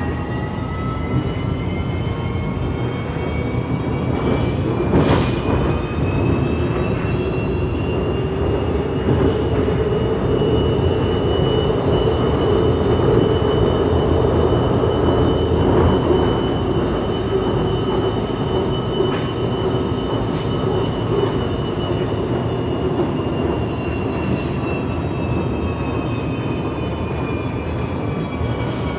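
Inside a CSR Zhuzhou "AMY" light-rail car running between stations: the traction motors whine over a steady rumble of wheels on track. The whine climbs in pitch through the first half, then slowly falls. A single sharp knock comes about five seconds in.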